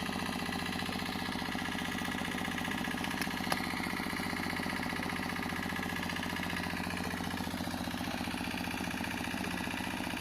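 Motor-driven water pump running at a steady, even hum as it draws water and mud out of the pit, with one faint click about three and a half seconds in.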